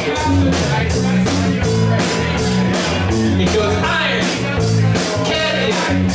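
Live rock band playing: distorted electric guitars over drums, with a steady cymbal beat of about three to four hits a second.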